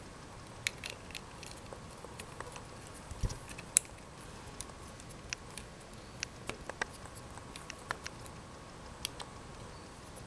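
Scattered small metallic clicks and scrapes of a flat-blade screwdriver working the screws of a 2E carburettor's diaphragm cover as they are tightened, with a dull knock about three seconds in and a sharp click just after.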